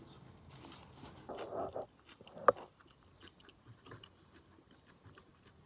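Close-miked eating: a person biting and chewing food in small wet clicks, with a brief louder crunchy patch just past a second in and a single sharp click about two and a half seconds in.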